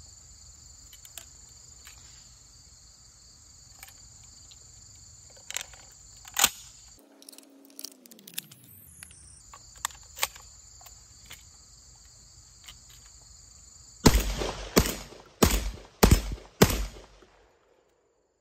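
Aksa S4 12-gauge gas-operated semi-automatic shotgun firing five rounds of Winchester Universal 1 1/8 oz birdshot in quick succession, about half a second apart, near the end. It cycles every shell and locks back on an empty magazine, so the light load runs it reliably. Before the shots, shells click into the tube magazine over a steady chirring of crickets.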